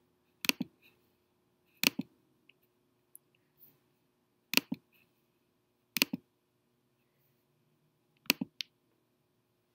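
Computer mouse button clicked five times, each click a quick press-and-release pair, with a second or more between clicks.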